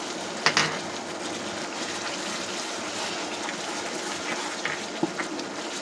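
Bengali masala of onion, ginger-garlic and tomato paste with ground spices sizzling as it is fried down in a nonstick frying pan. A plastic spatula scrapes through it, with a few sharp taps against the pan, the loudest about half a second in.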